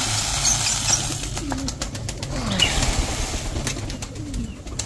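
Domestic pigeons in a loft: a burst of wing flapping in the first second, then several low, falling coos and scattered short clicks as the flock moves about.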